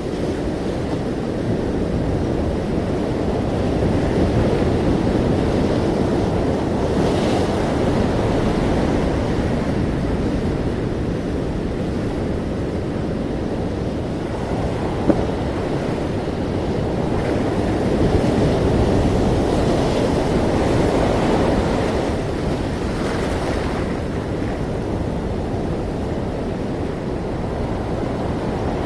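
Ocean surf: a steady rush of waves that slowly swells and eases, with two brighter, hissier washes of breaking water about a third of the way in and again near the end.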